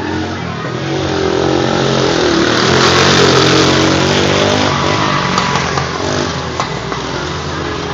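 ATV engine revving under way: its pitch and loudness climb to a peak about three seconds in, then ease back down.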